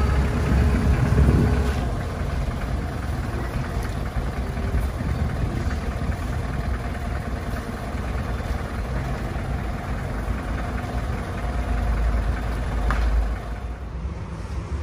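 Low, steady rumble of a heavy vehicle's diesel engine running, louder at the start and again near the end, with a brief sharp sound just before it drops away.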